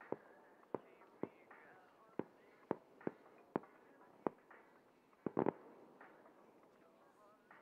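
Small fireworks going off in a string of sharp bangs, roughly two a second, then a quick cluster of three or four bangs about five seconds in.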